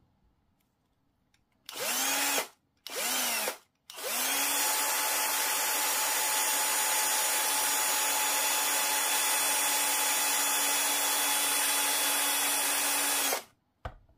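Cordless drill spinning up in two short trigger pulls, then running at a steady speed for about nine seconds before stopping.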